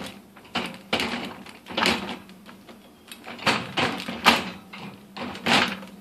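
Plastic silverware basket being moved about and fitted into a GE dishwasher's wire rack, giving about six irregular knocks and rattles of plastic against metal.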